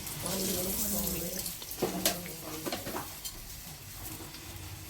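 A steady kitchen hiss with a few sharp clinks of utensils about two seconds in, and faint voices in the first second or so.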